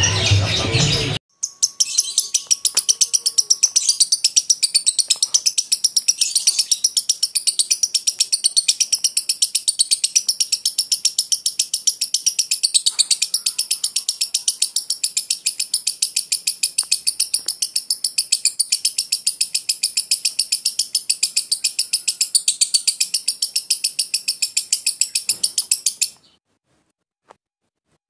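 Fischer's lovebird singing a long unbroken 'ngekek' chatter: a rapid run of sharp, high-pitched chirps, several a second, kept up for over twenty seconds after starting about a second in, and cutting off abruptly near the end.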